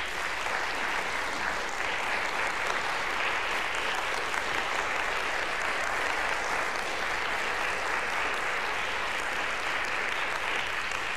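Crowd applauding: a steady, even wash of many hands clapping.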